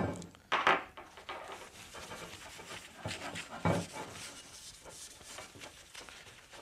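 A rag rubbing and scuffing across an aluminum chill plate as it is wiped clean, with a few louder knocks and rustles from handling, the loudest about half a second in and another near four seconds.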